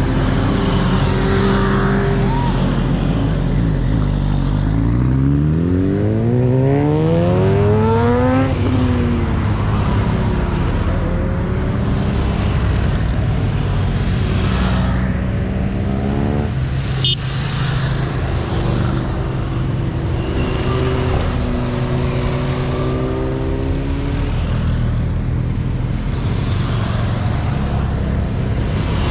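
Motorcycle engine pulling hard, its pitch rising steeply through a gear and dropping at a shift about eight seconds in. It then builds twice more over a steady low drone and rushing noise.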